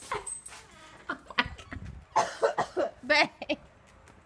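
A woman coughing in a run of short, harsh coughs starting about two seconds in, her throat burning from hot pepper sauce she swallowed.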